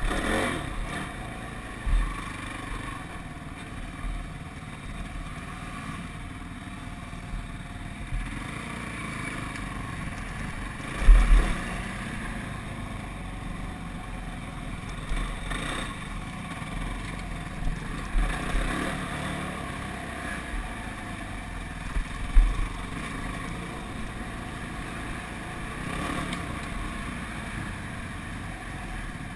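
ATV engine running as it drives along a bumpy dirt trail, with several short low thumps from the ride, the loudest about eleven seconds in.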